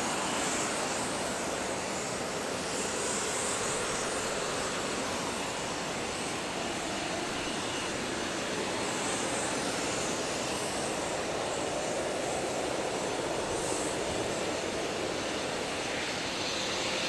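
Jet airliner engines running, heard as a steady, even rush of engine noise.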